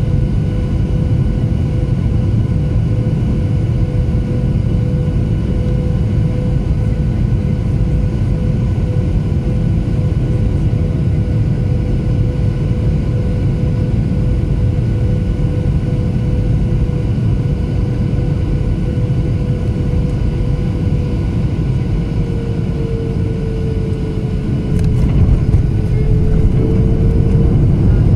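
Cabin noise of a KLM Boeing 737-800 with CFM56 engines on final approach: a steady low roar of engines and airflow with a steady engine whine. About 22 s in, the whine drops a little in pitch as thrust comes back for the flare. Near 25 s there is a brief clatter and the rumble grows louder as the wheels touch down and roll along the runway.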